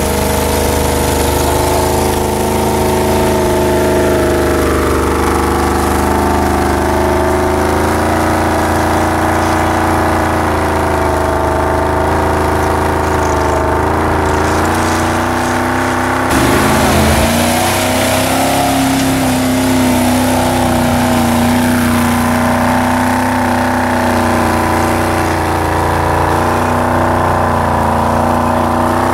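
Land Rover Discovery's V8 engine running hard under load as the 4x4 climbs through snow and mud, its revs rising and falling, with an abrupt change in the sound about halfway through.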